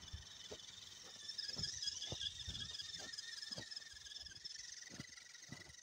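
Redcat Everest 10 RC crawler's electric motor and geartrain whining steadily at a high pitch as it drives through snow, with crunches in the snow about twice a second.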